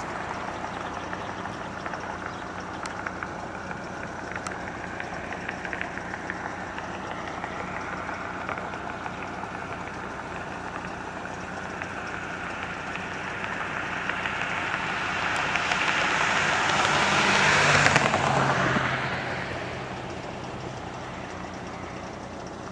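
Steady road and traffic noise, with a vehicle passing close by: it grows louder, peaks about eighteen seconds in, drops in pitch and fades away.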